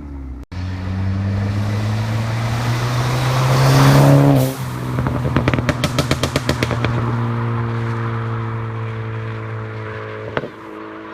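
Ford EcoBoost turbocharged engine with a crackle-and-pop tune, revved up and then released: as the revs fall, the exhaust fires a quick string of crackles and pops on the overrun before the engine settles back to a steady idle.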